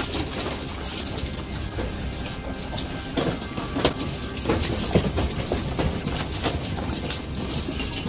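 Aquarium water sloshing and splashing over the tank's rim as the room shakes in an earthquake, with many sharp knocks and clatters throughout.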